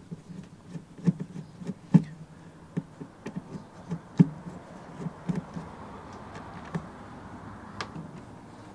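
Hand screwdriver backing screws out of a sheet-metal access panel on an electric smoker: irregular sharp metal clicks and taps as the bit seats and turns, a few of them louder knocks.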